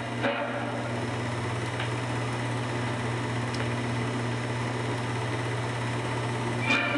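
Steady low hum with an even background hiss.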